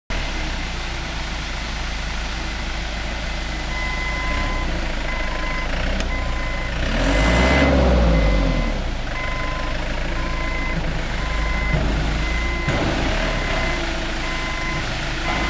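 Clark GTS30 forklift running, with its warning alarm beeping in a steady rhythm from about four seconds in. The engine rises in a brief louder swell near the middle, then settles back.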